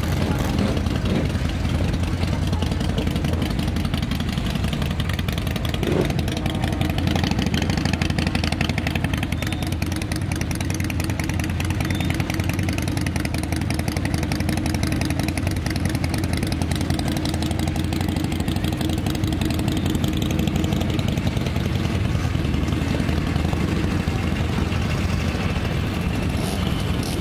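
Several motorcycle engines idling and pulling away at low speed as machines ride slowly past one after another. They make a steady, fast engine beat throughout, with no hard revving.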